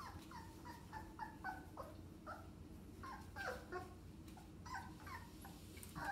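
English Springer Spaniel puppy whimpering: a run of short, high squeaks that drop in pitch, two or three a second, with brief gaps.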